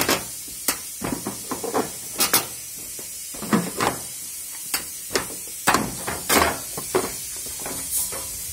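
Irregular plastic knocks, clicks and brief scrapes as the detergent dispenser housing of a front-loading washing machine is wiggled loose and lifted out of the cabinet.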